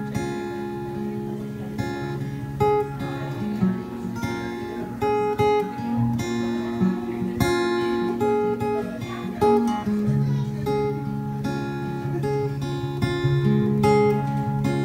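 Acoustic guitar played solo, strummed and picked, with chords changing every second or two; no singing.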